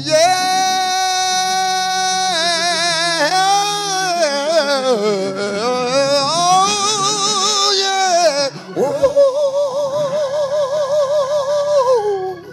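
A single voice singing long, high held notes with wide vibrato and sliding runs, breaking off briefly about two-thirds of the way through before a second long note, over a faint organ.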